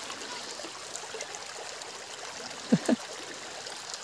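A shallow stream running steadily over stones and mud, with two brief sharp sounds in quick succession about three seconds in.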